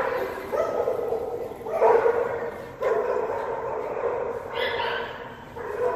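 Dog vocalizing off to the side: a string of drawn-out yelps and whines, each about a second long, coming one after another.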